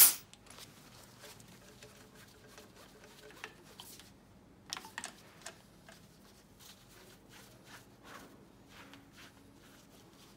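Compression gauge release valve letting out a brief hiss of air as the needle drops to zero, then faint clicks and light taps of the compression tester hose being moved between spark-plug wells on a Suzuki M15A 1.5-litre engine.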